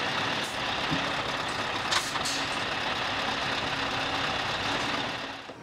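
Scania S520's 16-litre V8 diesel running steadily at low revs, with two short hisses about two seconds in.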